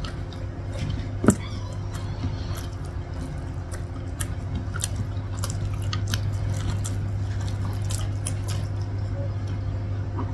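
Eating by hand: fingers squishing and mixing rice with peanut-sauced vegetables on a plate, with small wet clicks and chewing, and one sharper click about a second in. A steady low hum runs underneath.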